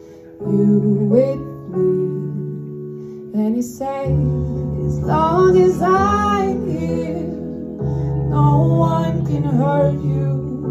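A woman singing live into a microphone over sustained chords played on an electric keyboard. Deeper bass notes join about four seconds in, and she holds a wavering note soon after.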